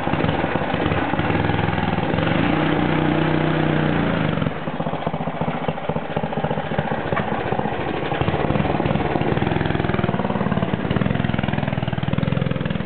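A newly overpowered minibike's small gas engine running and revving as it is ridden. The revs climb for a couple of seconds, drop off about four seconds in, then climb again toward the end.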